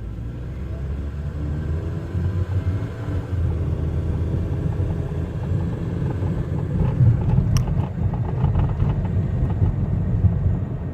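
Low engine and road rumble inside the cabin of a 2005 Chevy Cobalt as it pulls away and picks up speed, growing louder. The owner is chasing a knocking from the front end that changes with speed and gets worse when braking; he cannot tell whether it is the wheel, the steering or the drivetrain.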